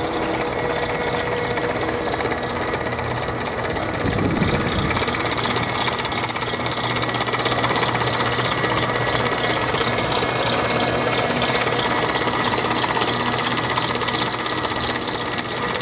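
Swing stage hoist motors running steadily as the suspended platform climbs its wire ropes, a constant mechanical hum with a brief low rumble about four seconds in.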